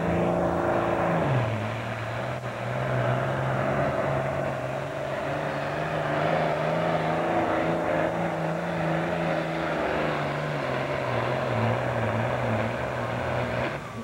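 Diesel engine of a Super Farm class pulling tractor at full throttle, pulling the weight sled. Its pitch drops sharply about a second in as the load bogs it down, then holds steady and wavers before easing off near the end.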